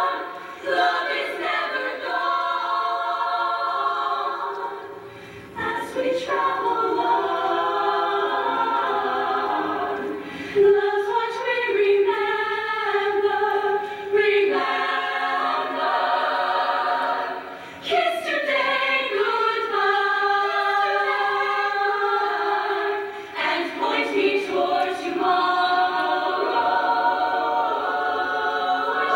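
Female show choir singing in harmony, holding long chords with some notes sliding in pitch. The sound drops away briefly about five seconds in, then comes back.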